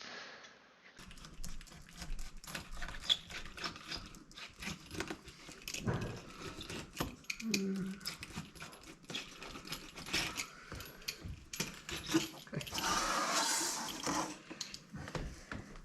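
Hand-work noises of a window screen being rescreened: scattered clicks, taps and rustling as the rubber spline is pressed into the frame's groove with a spline roller and the mesh is handled, with a denser rustle for about a second and a half near the end.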